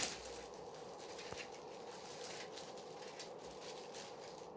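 Faint rustling with a few light clicks, from plastic model-kit parts and their bags being handled. There is a sharper click at the start and another about a second in, over a low steady room hum.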